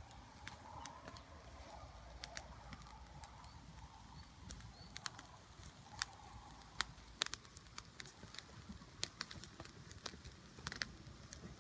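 Wood campfire crackling: irregular sharp pops and snaps of burning wood, faint overall.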